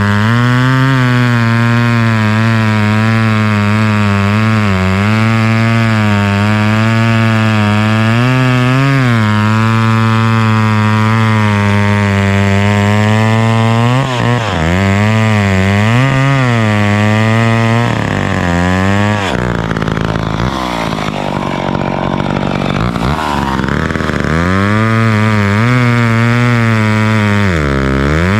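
McCulloch Mac 10-10 two-stroke chainsaw with a 16-inch bar running hard and cutting wood, its pitch repeatedly dipping and recovering as the chain loads up in the cut. About twenty seconds in the steady note breaks up into a rougher sound for a few seconds, then picks up again.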